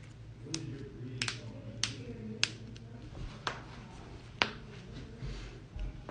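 Joints cracking: a run of about seven sharp, single pops at irregular intervals over the first four and a half seconds, the last the loudest.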